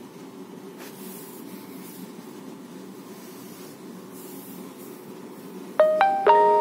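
Realme 2 Pro smartphone audio with a sound fault: a steady low hissing noise, then about six seconds in a quick run of three loud electronic beeps that step in pitch.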